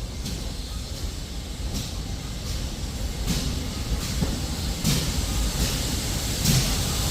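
Steam locomotive working slowly, its exhaust beats about one every second over a low rumble and hiss, growing louder as it draws nearer.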